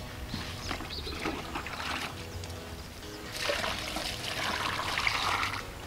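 Water poured from a plastic mug trickling and splashing over freshly moulded cement blocks, getting louder from a little past halfway; the blocks are being watered to cure them and make them strong. A mug dipped into a water container is heard before the pour.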